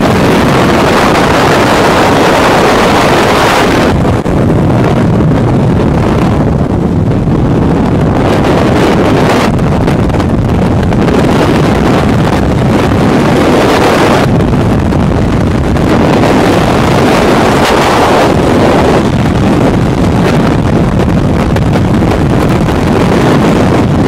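Loud wind rushing over a helmet camera's microphone in skydiving freefall. For the first four seconds, at the open aircraft door, the rush is brighter and hissier. After the exit it turns heavier and swells and eases slowly with the body's speed and position in the airflow.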